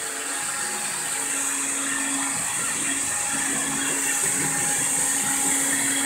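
Electrolux cordless stick vacuum running steadily: a motor hum under a high, even hiss.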